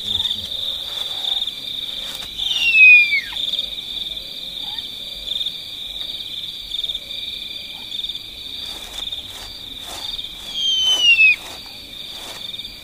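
Crickets trilling steadily in a pulsing high chorus, with a bird's loud falling whistled call twice, about eight seconds apart.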